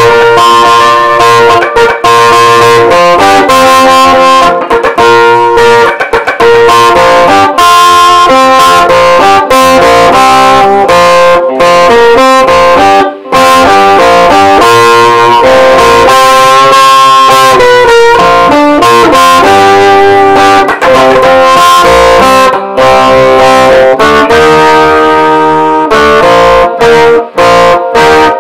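Stratocaster-style electric guitar played through an amplifier: an instrumental rock tune of held, sustained notes that change every second or so.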